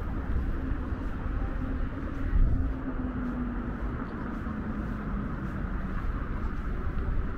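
City street traffic noise, with a car engine passing in the first few seconds.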